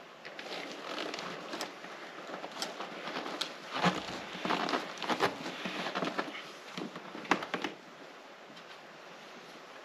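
Scraping, scuffing and a few sharp knocks as an orange PVC drain pipe is pushed and twisted in its push-fit joint. The noise comes in irregular spells, busiest in the middle and easing off near the end.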